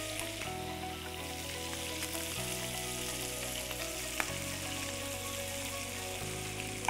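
Beef short ribs searing in a hot pan, a steady sizzle, with one sharp knife tap on the wooden cutting board about four seconds in.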